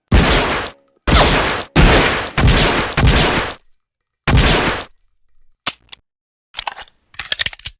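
Colt M1911A1 .45 ACP pistol firing about five single shots at an uneven pace, each a sharp report with a short ringing tail. After the last shot come several quieter metallic clicks and clatter.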